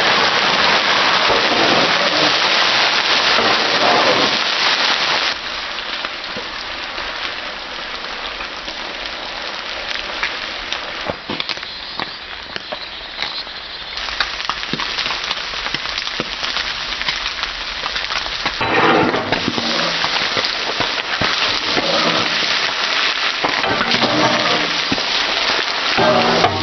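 Marinated squid sizzling and crackling in hot oil on a large iron tawa, loudest as the pieces first go into the oil, then settling to a quieter, steady sizzle after about five seconds.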